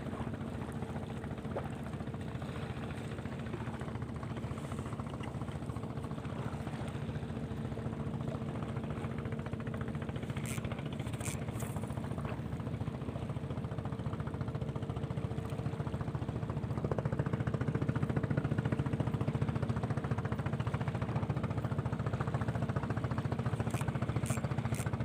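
Small boat's engine running steadily while the boat is underway, then throttling up about two-thirds of the way through and running louder.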